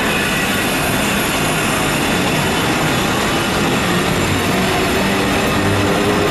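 Steady, loud rumble and hiss of an elevated BTS Skytrain station, with faint steady whining tones in it and no breaks.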